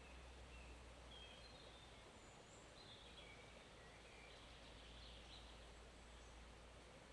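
Faint forest ambience: a steady, low wash of a forest stream with scattered faint, high bird chirps.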